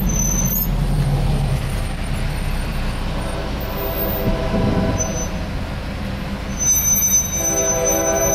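Steady low rumble, then about seven seconds in a diesel locomotive's multi-chime air horn starts blowing, a held chord of several notes, heard from inside a car.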